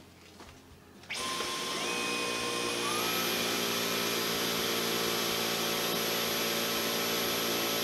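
Dyson V11 cordless stick vacuum switched on about a second in: its motor whine steps up in pitch as it spins up, then runs steadily. Really quiet for a vacuum, reading about 74 decibels on a phone meter.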